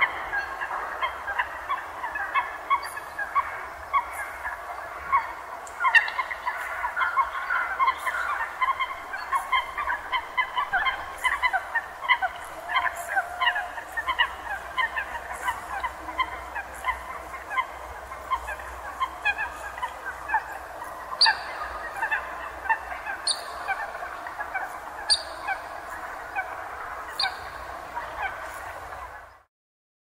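A large flock of water birds calling all at once: a dense, continuous chatter of short, overlapping calls. A few sharper, higher notes stand out in the later part.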